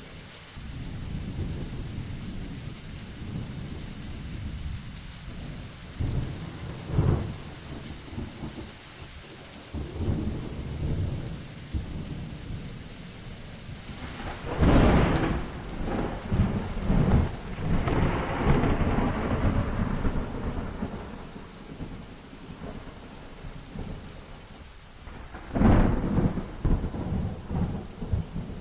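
Thunderstorm: steady rain under continuous low, rolling thunder. Sharp thunderclaps break in about a quarter of the way through, loudest about halfway, and again near the end.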